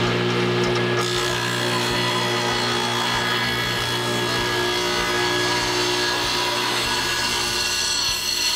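Table saw running, its blade cutting through a cedar board, over the steady hum of the saw's motor. The cutting noise grows stronger about a second in.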